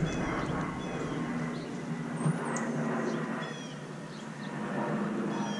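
Steady drone of a distant engine, with several short, high chirps over it.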